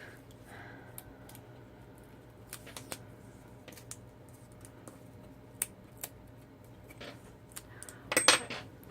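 Light clicks and taps of paper-crafting tools and cardstock being handled on a work table, with a louder clatter and rustle about eight seconds in.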